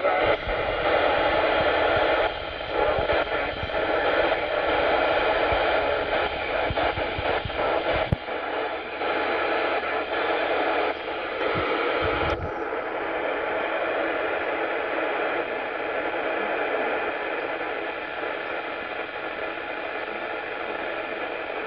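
Hiss and static from a Yaesu FT-847 transceiver's speaker, tuned to the weak FM downlink of the BY70-1 CubeSat while the tuning knob is turned to follow the Doppler shift. There is a sharp click about eight seconds in, and the noise changes character a few seconds later.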